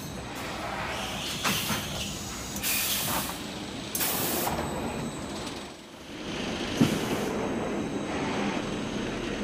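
Automatic bundling machine's flighted infeed and stacker running, with a steady mechanical clatter, two short bursts of pneumatic air hiss a few seconds in, and a sharp knock near the end.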